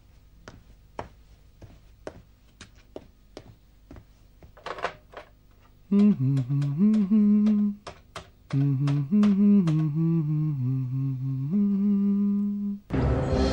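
A man humming a tune to himself as he dials a telephone. The hum starts about six seconds in, moves between notes with a couple of short breaks, and ends on a held note. Before it come light footsteps and clicks, and music comes in just before the end.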